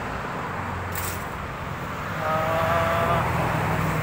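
Motor vehicle engine running on the nearby road, a steady hum that swells louder about two seconds in as it goes by.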